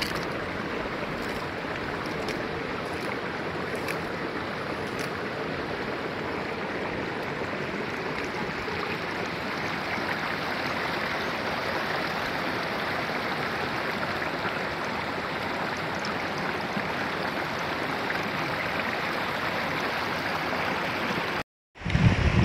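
Shallow stream running steadily over stones, an even rushing of water. It cuts out briefly near the end and comes back with a low rumble of wind on the microphone.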